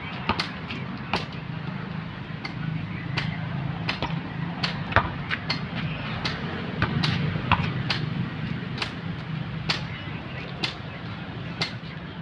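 Basketball being dribbled on asphalt: sharp bounces, unevenly spaced about once or twice a second, over a steady low hum.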